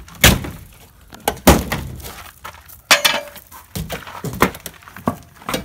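Aluminum RV siding being pried off with a hand pry tool: about seven sharp, irregular metallic cracks and clanks as rusted staples pop free and the thin aluminum panel flexes and rattles.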